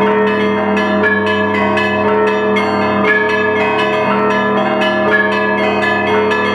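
Russian Orthodox monastery bells ringing a full peal: fast, continuous strokes on many smaller bells over the steady hum of larger bells.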